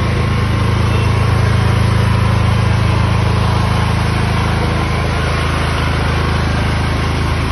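Bajaj-M 7 kVA petrol generator's engine running steadily.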